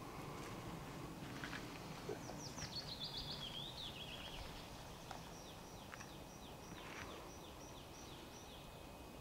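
Songbirds singing faintly over a low steady rumble. About two seconds in comes a quick phrase of falling high notes, then a slow, even series of about ten short high notes that runs until near the end.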